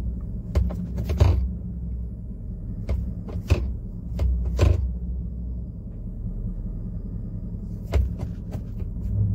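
Inside the cab of a 2012 Chevrolet Avalanche rolling slowly in Drive: the V8 engine and the road give a steady low hum, broken by several short sharp knocks or rattles, the loudest about a second in.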